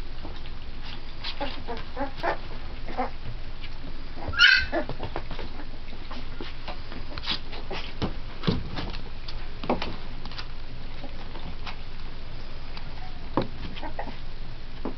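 Three-week-old pit bull puppies feeding and jostling: scattered short squeaks and small noises, with one loud, high-pitched squeal about four and a half seconds in.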